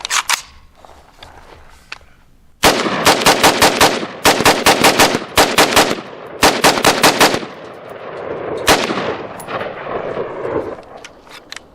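ATI Alpha Maxx AR-15 carbine firing 5.56 NATO rounds in rapid semi-automatic strings during its break-in. After a quiet start, several quick runs of shots come a few a second over about five seconds. One last shot follows about a second later.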